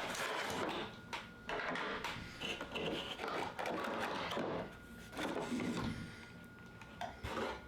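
Plastic packaging being handled and pulled open by hand: irregular rustling and crinkling with sharp plastic clicks.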